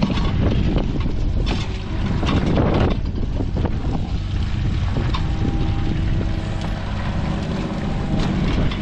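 Mini excavator's diesel engine running steadily as its bucket digs and scrapes wet soil and stone out of a waterlogged drainage trench, with wind buffeting the microphone. The scraping is loudest around two to three seconds in, and a steady tone comes in from about five seconds in.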